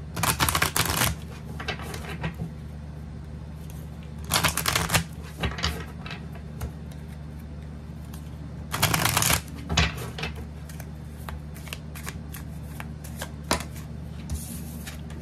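A deck of tarot cards being shuffled, in short bursts of rapid card flicks every few seconds.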